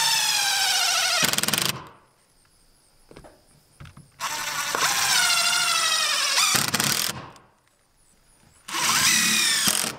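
Craftsman cordless impact driver driving 2-inch GRK pan-head screws through a vinyl window's nailing flange into the wall. It goes in three runs, each a whine that wavers in pitch: one stopping about two seconds in, a longer one from about four to seven seconds, and a short one near the end.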